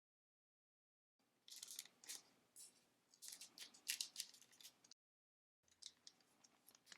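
Crisp crackling and snipping of trading cards and their pack wrapper being handled, in two clusters of short sharp sounds with dead silence before and between them.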